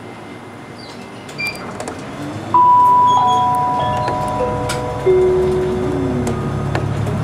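A chime rings a descending run of about five clear tones, each lower than the last and ringing on under the next, starting about two and a half seconds in. Under it runs the low rumble of the bus engine as the bus moves off, growing from about four seconds in.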